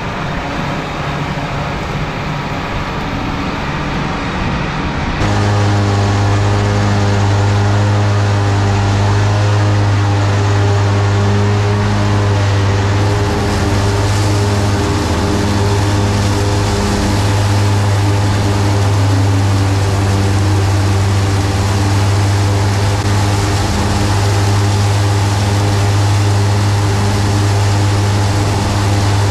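John Deere 7410 tractor running steadily under load while driving an R280 rotary mower, a steady engine drone with the mower's rush on top. About five seconds in the sound changes suddenly to a louder, even hum.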